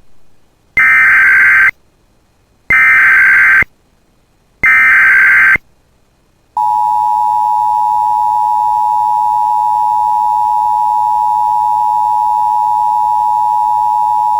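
Emergency Alert System (EAS) broadcast opening: three one-second bursts of the SAME digital header, a harsh buzzy data screech, about a second apart, then the steady two-tone EAS attention signal starting about six and a half seconds in.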